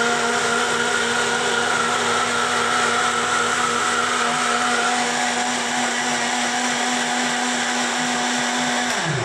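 Bullet-style electric mixer grinder running steadily at speed, blending apples into juice with a steady motor hum. Near the end the motor cuts off and winds down, falling in pitch.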